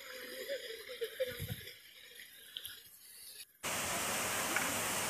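Waterfall's steady rush of falling water, cutting in abruptly about three and a half seconds in. Before it, faint voices and a low thump.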